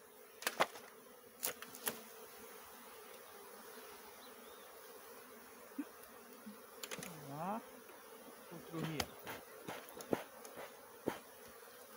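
Swarm of Apis honeybees buzzing steadily around their exposed wild nest, with one bee's pitch swooping down and back up as it passes close about seven seconds in. Scattered sharp clicks and knocks sound near the start and again in the second half.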